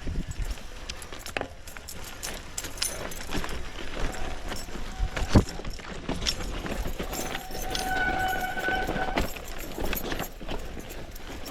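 A mountain bike rattling and knocking over rough ground on a descent, with one sharp knock about halfway. About two thirds in, the disc brakes squeal for a second or two with a steady high tone.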